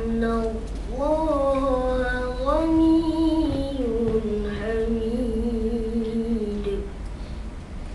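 A boy's voice in melodic Quran recitation (tajweed), drawing out long ornamented notes that glide up and down in pitch, with the phrase ending about seven seconds in.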